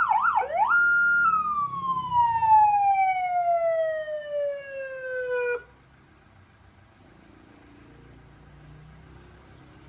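Electronic vehicle siren switching from a fast yelp into a rising tone that holds briefly, then falls slowly and steadily. It cuts off suddenly about five and a half seconds in, leaving only a faint low background hum.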